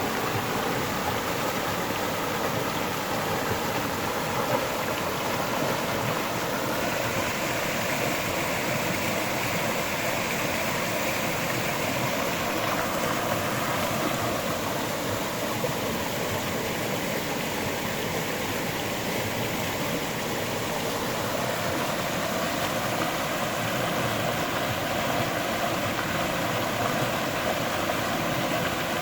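A river flowing over rocks: steady rushing and babbling water.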